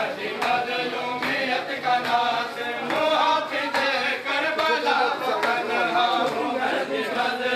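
A group of men chanting a Muharram mourning lament in unison, with a sharp slap a little more often than once a second, in the rhythm of matam chest-beating.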